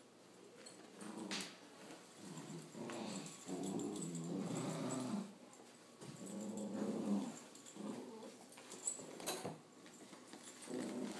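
Puppies growling playfully in several rough bouts while tugging on a toy, with a few sharp clicks between.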